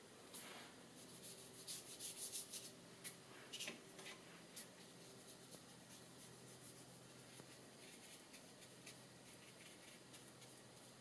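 Faint sounds of a watercolour brush working paint: light clicks and scratches for a few seconds about two seconds in, then very soft brushing on paper.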